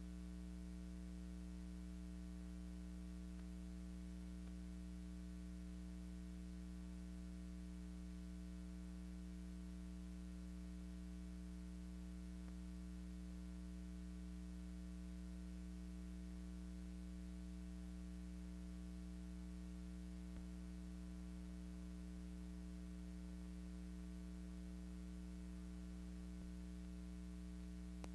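Steady electrical mains hum with a faint hiss beneath it; nothing else is heard.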